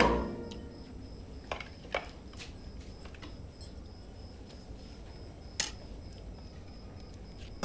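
Faint room tone with a few light clinks of dishes and cutlery at a dinner table: two soft taps about a second and a half in and a sharper one more than halfway through. Background music fades out at the very start.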